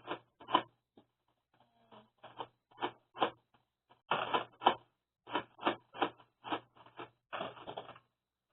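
A string of irregular clicks and clatters, some in quick clusters, with a longer rattle near the end.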